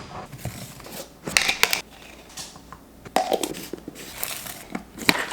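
Irregular rustles and light knocks, several short bursts a second or so apart, with no voice or music.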